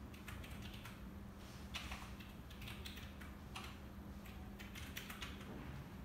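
Light, irregular taps and clicks of a fingertip on a smartphone's touchscreen, over a faint steady electrical hum.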